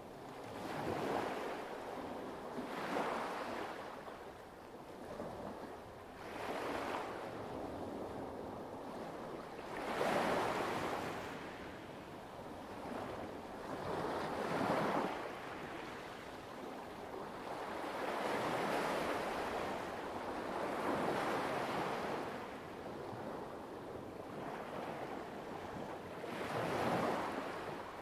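Light waves washing onto a pebble beach: a wash of surf that swells and falls away every few seconds, with stronger waves about ten and fifteen seconds in.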